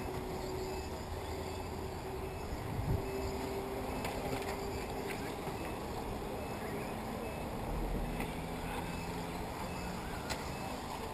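Radio-controlled off-road short-course trucks racing on a dirt track, heard from the drivers' stand: a steady hum with faint motor tones, and one thump about three seconds in.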